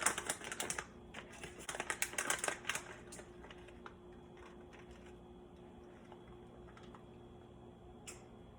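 Quick, irregular light clicks and rattles for about three seconds as a tablespoon of bacon bits is scooped and sprinkled over a casserole. Then only a faint steady hum, with one more click near the end.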